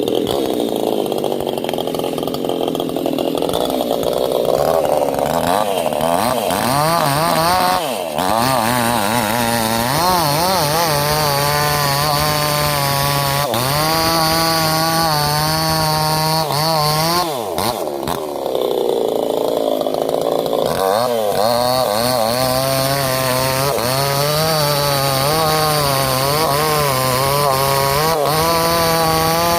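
Proquip chainsaw running hard while cutting into a sugar palm trunk, its engine pitch wavering up and down as the chain loads and unloads. The pitch drops briefly about 8 seconds in and again around 18 seconds, then revs back up.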